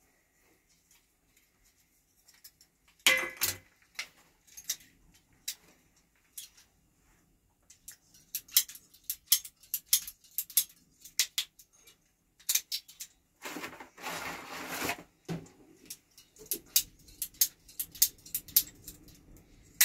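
Sharp clicks and small metallic clinks of a red hand-held plastic pipe cutter being worked on white water pipe, starting about three seconds in. There is a short scraping rasp about two-thirds of the way through.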